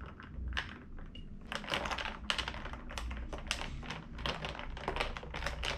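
A spoon stirring an iced drink in a tall glass: the spoon and ice cubes clink against the glass in quick, irregular clicks, sparse at first and denser from about a second and a half in.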